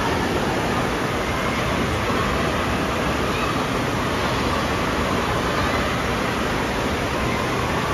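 Steady rush of water pouring down water slides and splashing at their runouts, a constant loud wash of noise in a large indoor hall, with faint voices mixed into the din.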